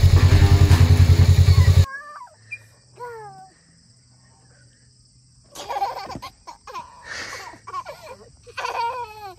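A loud, low, evenly pulsing drone for about the first two seconds that cuts off abruptly. Then young children's high voices squealing and laughing in short rising and falling cries, in two spells.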